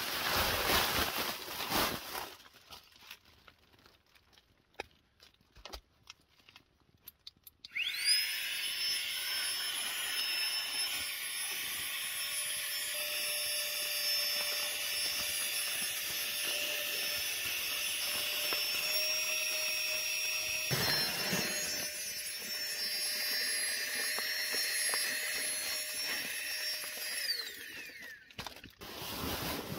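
Small electric air pump whirring steadily as it inflates a Therm-a-Rest NeoAir XTherm sleeping pad. It spins up with a rising whine about eight seconds in and winds down with a falling whine near the end. Before it starts, the pad's fabric rustles loudly as it is handled.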